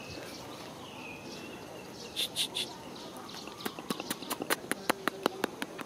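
Plastic shade netting rustling and crackling as a small monkey climbs onto it: three short rustles near the middle, then a quick, irregular run of sharp clicks. A single high falling chirp sounds less than a second in.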